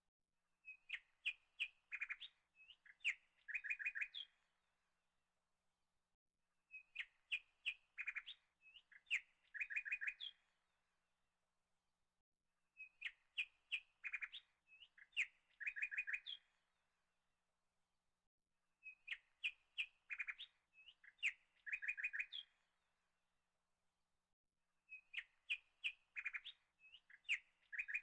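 Recorded songbird song used as a backing track: the same phrase of quick chirps and clicks repeats about every six seconds, as a loop.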